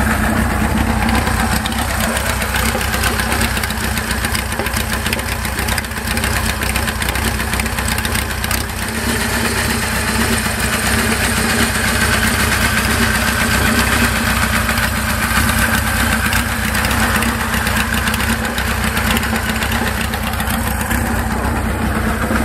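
Kawasaki KZ1000's air-cooled inline-four idling steadily through a one-off custom exhaust, with a deep low note.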